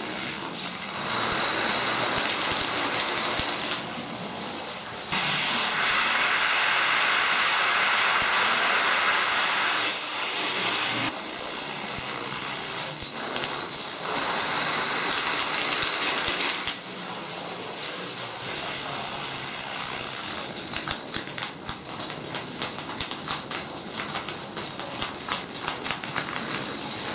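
A long chain of dominoes toppling: a dense, hissing clatter that swells and eases as whole picture fields go down. In the last several seconds it thins into rapid separate clicks as single lines fall.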